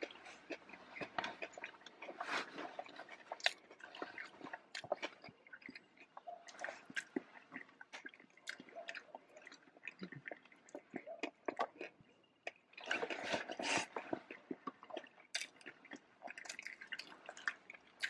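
Close-miked chewing and wet mouth sounds: many small clicks, smacks and pops, with a denser, louder stretch of noise about two-thirds of the way through.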